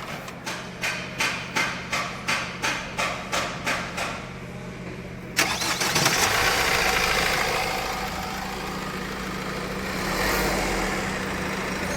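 Mahindra Marazzo's diesel engine being restarted: a run of even ticks, about three a second, fades away, then about five seconds in the engine fires with a sudden jump in level and settles into a steady idle, rising briefly near the end.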